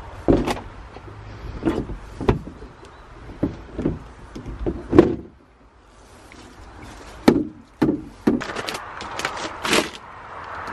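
A series of irregular knocks and clunks, about a dozen in all, the loudest about five and about seven seconds in.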